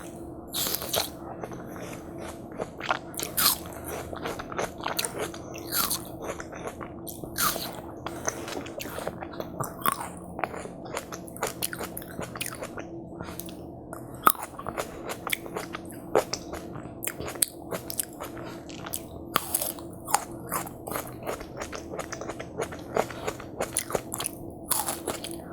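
Close-up eating sounds: crunchy bites into juicy watermelon and wet chewing, with many small clicks and a louder bite every second or two.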